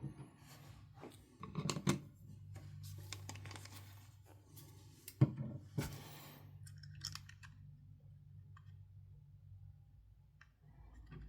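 Faint clicks and taps of small plastic parts being handled while a model locomotive's smoke unit reservoir is filled with water. The loudest tap comes about five seconds in, and a faint steady low hum runs underneath.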